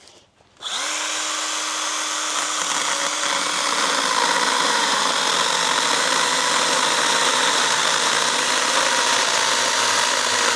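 Stihl GTA26 battery pruner's electric motor and chain starting up less than a second in and then running steadily, its chain freshly oiled.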